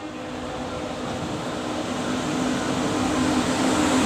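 WAP-7 electric locomotive hauling an LHB passenger train approaching, its wheel and rail noise and a steady hum growing steadily louder as it nears.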